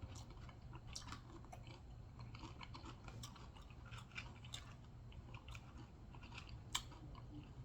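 Faint close-up chewing of Doritos nachos, with scattered small crunches and wet mouth clicks.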